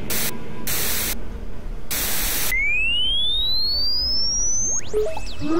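Synthesized electronic sound effects: three short bursts of static-like hiss, then one pure whistle-like tone rising steadily in pitch for about two seconds, followed by a few short electronic blips and pitch glides near the end.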